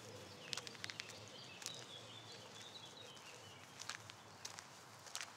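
Faint woodland ambience: a low outdoor hiss with scattered light clicks and crackles, and a brief series of high chirps a couple of seconds in.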